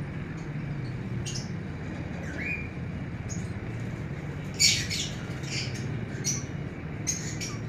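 Short, high bird calls and chirps several times, the loudest a sharp squawk about four and a half seconds in, over a steady low hum.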